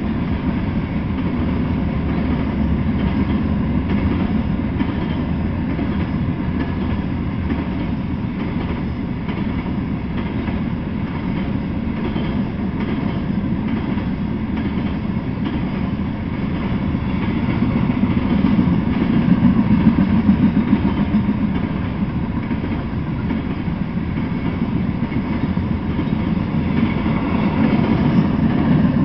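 Freight train of Norfolk Southern covered hopper cars rolling past: a steady low rumble of wheels on rail, swelling louder for a few seconds past the middle.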